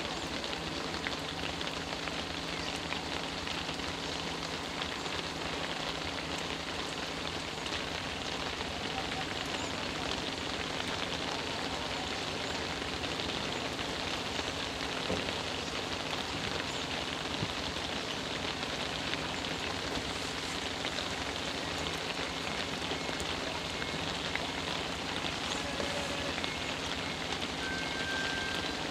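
Steady rain falling on the road and roadside vegetation, an even hiss that does not let up.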